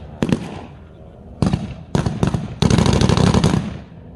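Blank gunfire in a WWII battle reenactment: scattered single shots, then a sustained burst of automatic fire lasting about a second, starting about two and a half seconds in.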